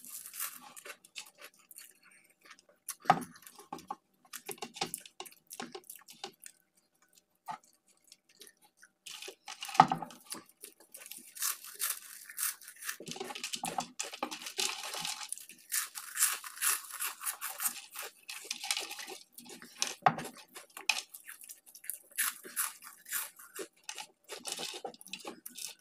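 Close-miked chewing and crunching of fast food, a dense run of crackles and wet mouth noises with a few louder knocks.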